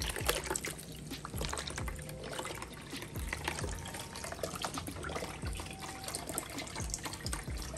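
Chicken broth trickling and splashing from a tipped carton into a bowl of broth, the last of the carton being drained.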